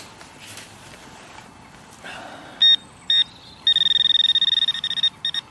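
Handheld metal-detecting pinpointer sounding: two short beeps, then from about two-thirds of the way in a fast, steady pulsing beep as it picks up a shallow metal target close to its tip.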